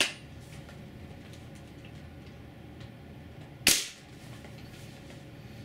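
A single sharp shot from a WELL L96 airsoft spring-powered sniper rifle upgraded with a UTG spring kit, about three and a half seconds in, firing a 0.43 g sniper BB.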